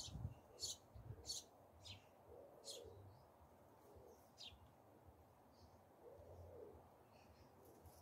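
Faint bird calls: a handful of short, sharp chirps from small birds in the first half, and a low, soft coo twice.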